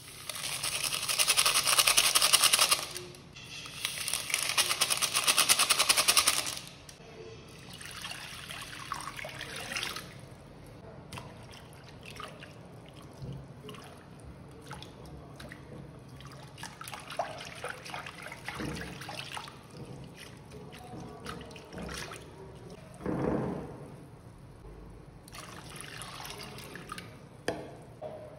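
Strawberry gelatin powder poured from packets into a glass bowl: two loud pours of about three seconds each. After them comes quieter stirring with a wire whisk, clicking and scraping against the glass as the gelatin dissolves in hot water.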